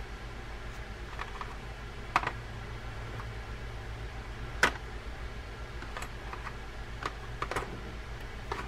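Scattered light clicks and taps of small reel parts and hand tools being handled on a wooden workbench, with two sharper taps about two and four and a half seconds in and a few quick clicks near the end, over a steady low hum.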